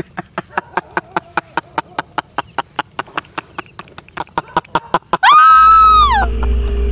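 A man laughing loudly and maniacally in rapid, regular pulses, about five a second, then a woman's high-pitched scream about five seconds in, lasting about a second, as a sudden loud low drone starts under it.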